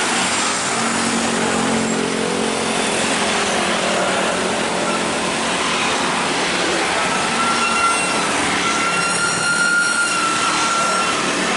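Heavy trucks passing on the road with diesel engine noise and tyre rumble. From about seven seconds in, a steady high-pitched tone sounds over the traffic.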